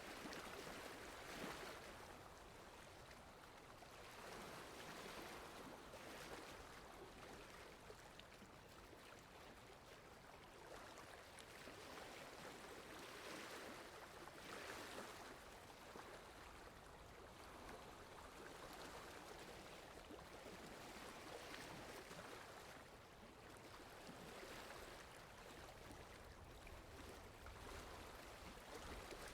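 Faint water lapping, coming and going in soft, irregular swells every few seconds over a low rumble.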